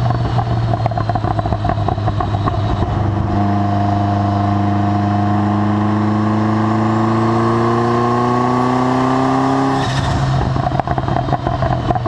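Ferrari F40's twin-turbo V8 breathing through a Tubi Style exhaust. It runs choppy and crackling off the throttle for the first few seconds, then pulls hard with a steadily rising pitch for about six seconds. Near the end it lets off suddenly with a short burst of sound and goes back to choppy off-throttle popping.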